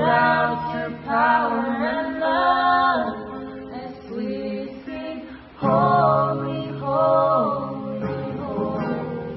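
A group of voices singing a worship song in two long phrases, holding notes and stepping between pitches, with a brief break a little past halfway before the second phrase starts.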